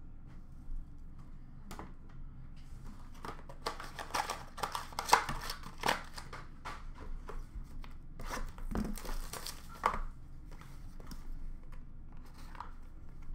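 Trading-card packs and packaging being handled and torn open by hand: irregular crinkling, rustling and tearing with sharp little crackles, busiest from about three to ten seconds in.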